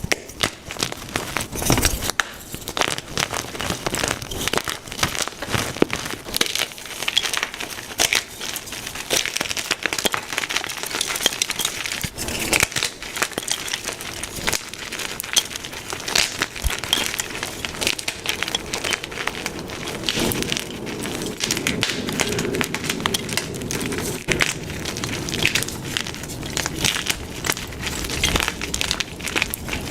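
Blocks of white gym chalk being crushed and crumbled, a dense, continuous run of dry, crispy crunches and crackles.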